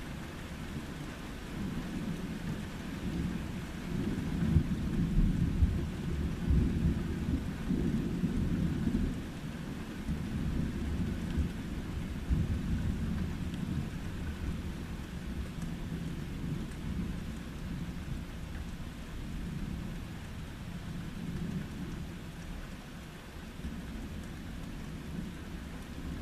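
A long, deep rumble of thunder over steady rain hiss. The rumble swells a couple of seconds in, is loudest through the first half, then eases to a fainter rumble.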